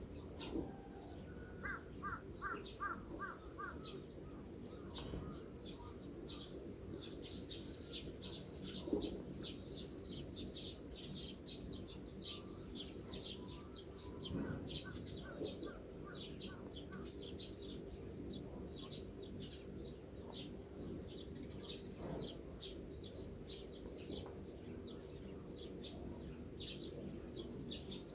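Birds calling in open countryside: many short, high chirps throughout, with a run of evenly repeated lower calls near the start and again about halfway through.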